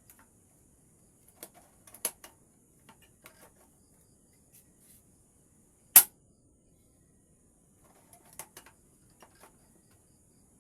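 Homemade 12-gauge shotgun being handled: a series of light metallic clicks and knocks, with one sharp crack about six seconds in, much louder than the rest and cut off short.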